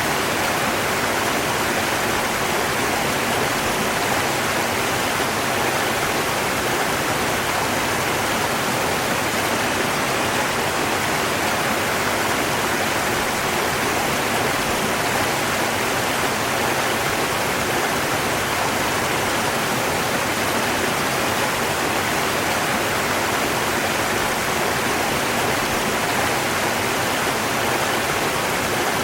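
Flowing river water rushing in a steady, unbroken hiss with no changes in level.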